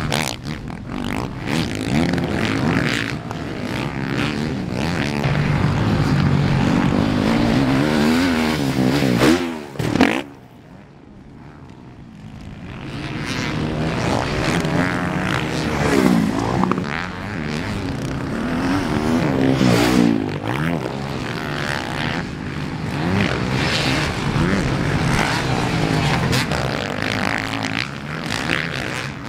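Motocross bikes racing on a dirt track, their engines revving up and down as the riders work the throttle. About ten seconds in the sound drops away for a few seconds, then builds again as bikes come past.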